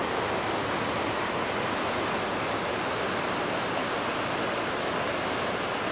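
Steady rushing of a mountain river.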